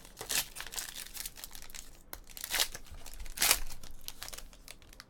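Crinkling and tearing of baseball card pack wrapping, with the rustle of cards being handled, in irregular bursts that are loudest about half a second in and again near two and a half and three and a half seconds.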